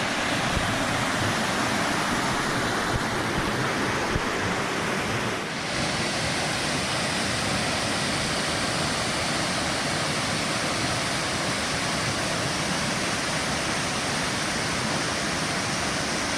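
Steady rush of water from a stream and waterfall, with a slight shift in its sound about five and a half seconds in.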